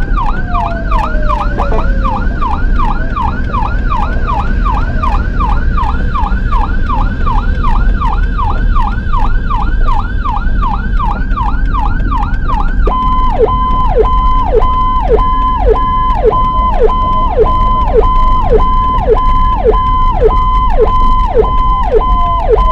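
Ambulance electronic siren heard from inside the cab on an emergency run. It sounds in a rapid yelp of about three rising sweeps a second, then about halfway through switches to a held high tone that dips quickly about twice a second. A steady low engine and road rumble runs under it.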